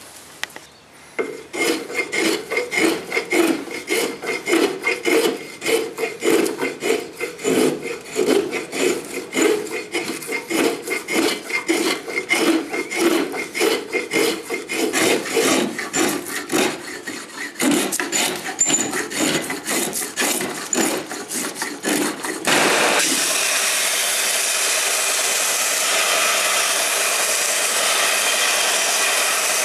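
A spokeshave shaving a sheoak hammer-handle blank held in a vise, in quick repeated scraping strokes. Near the end the sound switches abruptly to a belt sander running steadily with the wooden handle held against the belt.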